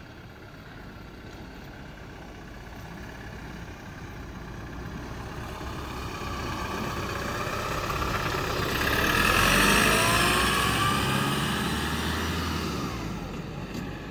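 Kia Bongo truck driving past close by: the engine and tyre noise grow steadily louder, peak about two-thirds of the way in with the pitch dropping as it passes, then fade as it drives away.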